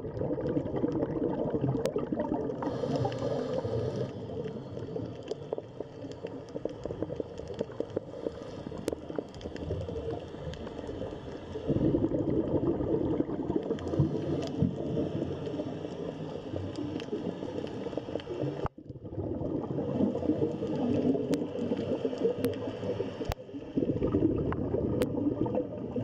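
Muffled underwater water noise, a low rushing and gurgling, as picked up by a camera under the sea. It shifts abruptly in level and texture several times.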